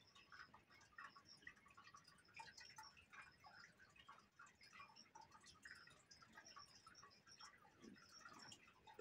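Faint scratching of a coloured pencil on paper: short, irregular strokes one after another.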